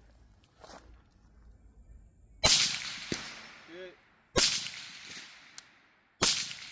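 Three rifle shots, evenly spaced about two seconds apart, each followed by a long echoing tail. A short faint tone comes a little over a second after the first and the third shot.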